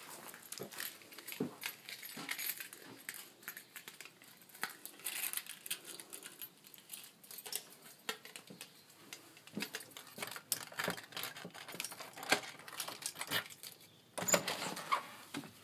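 Irregular light clicking and rattling handling noise from a hand-held phone being carried while walking, with a louder cluster of rattles near the end.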